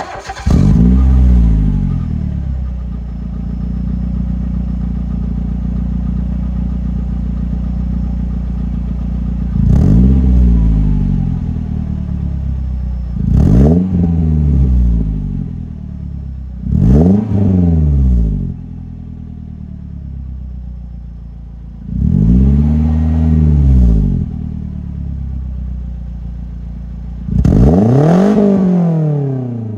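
2004 Suzuki Grand Vitara's 2.0 J20A inline-four starting up through a glasspack (cherry bomb) muffler fitted in place of the stock muffler. It catches with a flare of revs, settles into a steady idle, then is blipped five times. The fourth rev is held for about two seconds.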